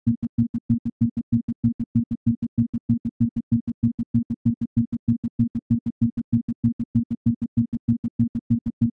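Isochronic tone for brainwave entrainment: a low synthesized tone switching sharply on and off in even pulses, about five a second.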